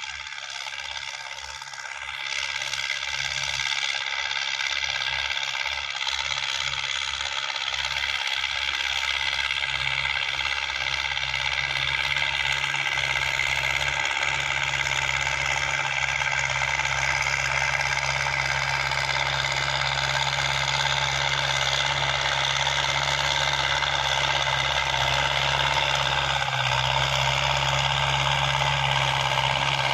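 Ford farm tractor's diesel engine running under load as it pulls a disc harrow through ploughed soil, steady in pitch and growing louder as the tractor comes closer.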